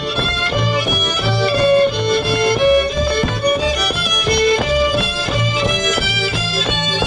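Lively Lemko folk dance music: a fiddle plays a quick melody of short notes over a steady, repeating bass beat.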